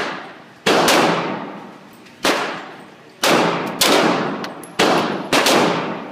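Glock 26 9 mm pistol firing a string of shots about a second apart, some closer together. Each sharp crack is followed by a long echo off the walls of an indoor range.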